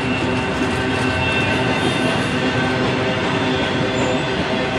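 Intermodal freight cars carrying truck trailers rolling past: a steady rumble of steel wheels on rail, with several faint steady squealing tones from the wheels running through it.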